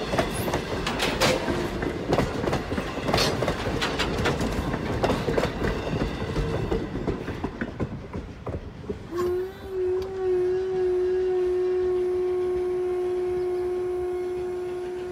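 Passenger coaches of a train hauled by 2-10-0 steam locomotive #90 clattering over the rail joints as they pass. About nine seconds in, the locomotive's steam whistle sounds one long, steady blast, wavering briefly as it opens.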